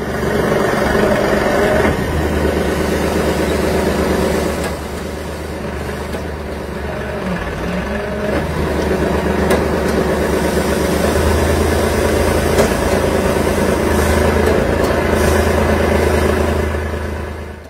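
Boom concrete pump truck running during a concrete pour: its diesel engine gives a steady low drone.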